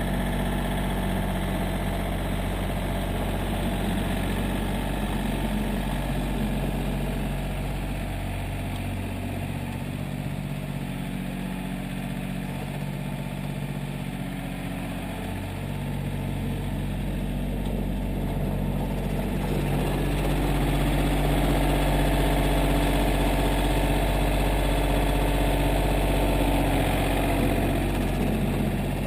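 John Deere 770 compact tractor's three-cylinder diesel engine running steadily. It is quieter around the middle as the tractor moves off, and louder in the last third as it comes back close by.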